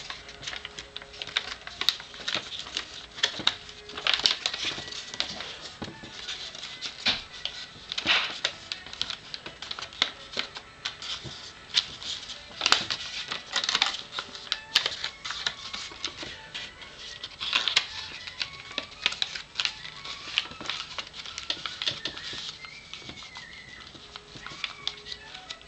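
Origami paper being folded and creased by hand: irregular crinkling and crackling, with sharper crackles every second or so.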